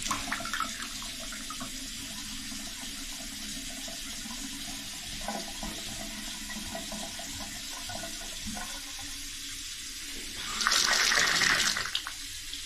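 Bathtub faucet running into the tub, the water going down a drain that has just been snaked clear and no longer backs up. About ten seconds in, the splashing gets louder for a second or so.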